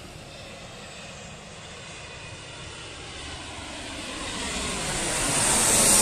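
Business jet with rear-mounted engines passing low overhead on landing approach: jet noise swells from about four seconds in to its loudest at the end, with a high whine that falls in pitch.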